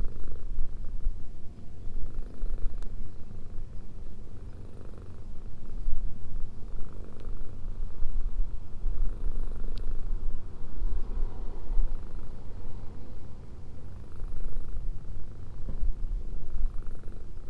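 Domestic cat purring steadily, a low rumble close to the microphone, while it is being stroked: the sign of a relaxed, contented cat.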